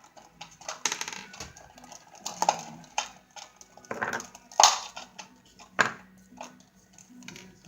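A small plastic Kinder Surprise toy capsule being handled and pried open by hand: scattered clicks, taps and crinkles, with the sharpest snaps about four and a half and six seconds in.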